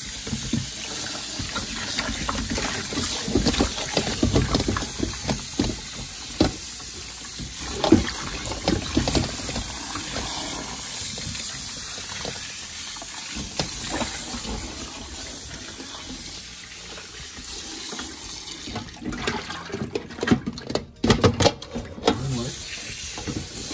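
Tap water running into a stainless steel bowl of baby potatoes in a sink, while hands rub and slosh the potatoes. Frequent short knocks of the potatoes against each other and the bowl, with a cluster of sharper knocks near the end.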